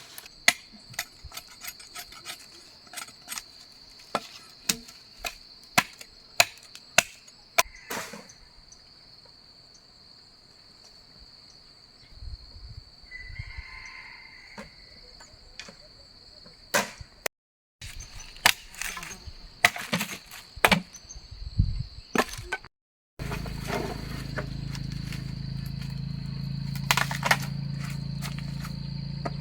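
Repeated sharp strikes of a tool on wood, about one to two a second, over a steady high insect drone. More irregular strikes follow after a break, and a steady low hum takes over near the end.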